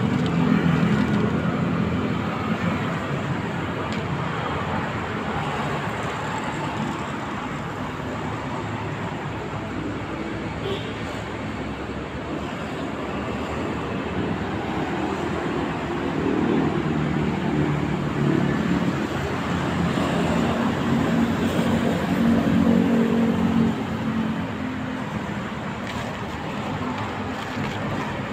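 Road traffic: motor vehicles running and passing in a steady wash of engine and tyre noise, swelling louder for several seconds in the latter part.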